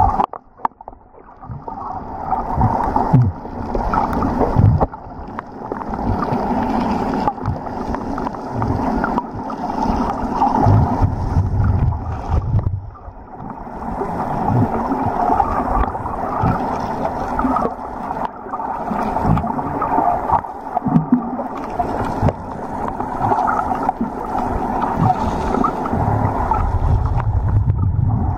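Muffled underwater sound picked up by a submerged camera: water rushing and gurgling around the housing, with irregular low thuds.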